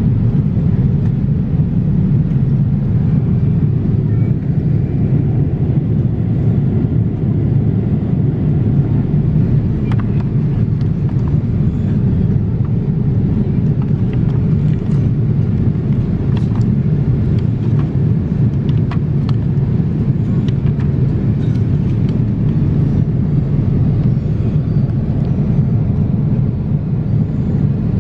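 Boeing 787-8 cabin noise in cruise: a steady, even rumble of engine and airflow noise heard from an economy seat, with a few faint clicks in the middle.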